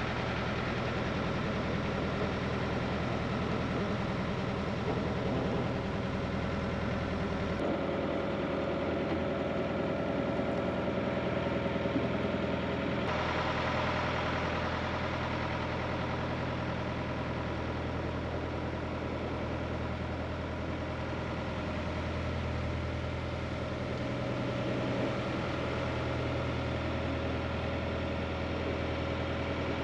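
A narrowboat's inboard diesel engine running steadily at cruising revs, a constant low hum with a slight shift in tone about 8 seconds in and again about 13 seconds in.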